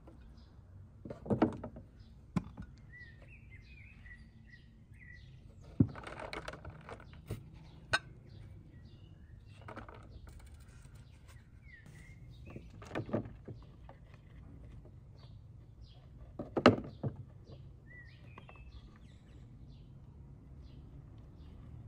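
Sliced carrots and other vegetables being dropped into a large plastic jar and bowls being handled: scattered knocks and clatters, a handful in all. Small birds chirp in short bursts.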